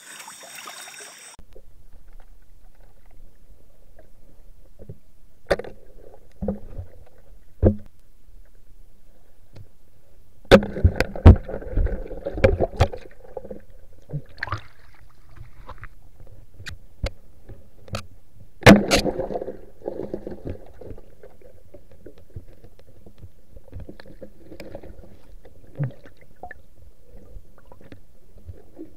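Muffled underwater sound of a river: a steady low rumble of moving water, with scattered sharp knocks and clicks. The knocks are densest around ten to thirteen seconds in, and there is one loud knock just before nineteen seconds.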